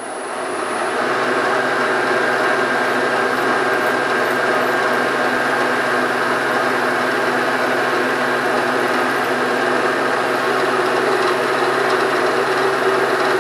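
Machine spindle spinning up and then running steadily as a 9/64 in. drill bit is fed slowly into a shaft, drilling a small oil hole.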